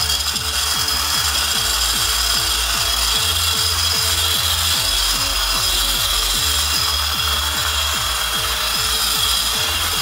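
Sonic 'Suzy' battery-powered desktop mini vacuum running with a steady high fan whine as it is slid over a desk, rubbing on the surface while sucking up paper scraps.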